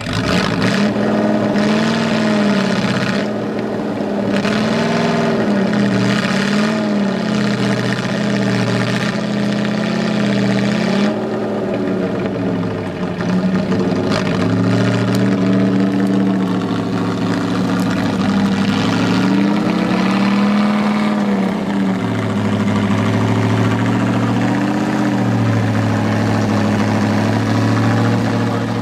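Tatra 805 truck's air-cooled V8 engine working under load as the truck crawls through a steep trial section, revving up and down over and over, then holding a lower, steadier note for the last several seconds.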